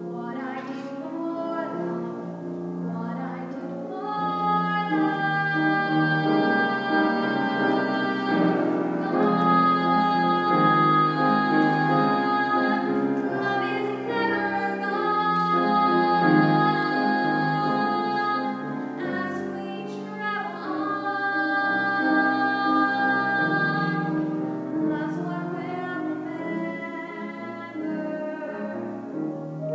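A woman singing solo with grand piano accompaniment, holding several long notes.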